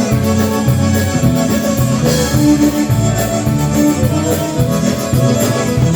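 Live band playing the instrumental opening of a country song in polka-band style, with a steady beat under sustained instrument lines.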